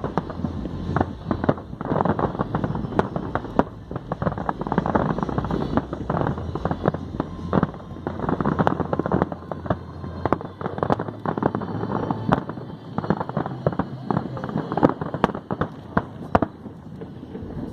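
Many sharp cracks and pops in rapid, irregular succession over a noisy background.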